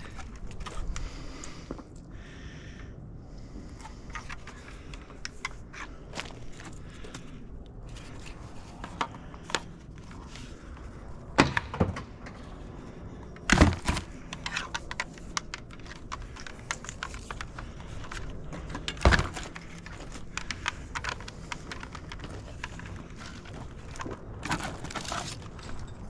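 Scrap metal being handled and moved: scattered clinks and rattles, with three heavier thunks as pieces are dropped or set down.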